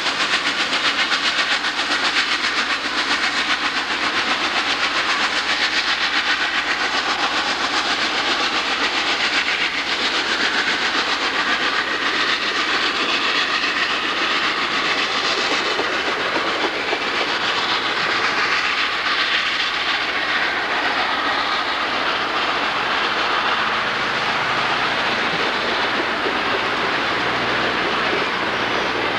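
Long passenger train's cars rolling past with steady wheel and rail clatter, while Norfolk & Western Class A 2-6-6-4 steam locomotive No. 1218 works upgrade ahead of them, its exhaust heard behind the car noise.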